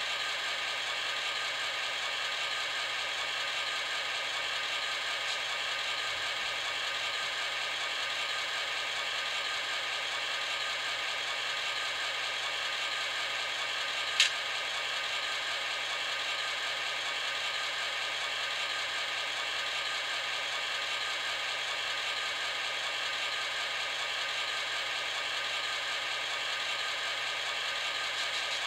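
Model diesel locomotive's sound decoder playing a steady diesel idle through a small speaker, thin with no deep bass. A single sharp click about halfway through.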